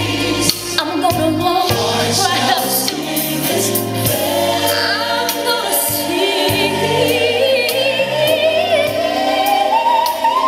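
Gospel music with a choir singing; a lead voice climbs steadily in pitch over the last few seconds.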